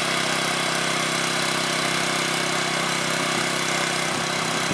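An engine running steadily at a constant speed, a level drone that does not rise or fall.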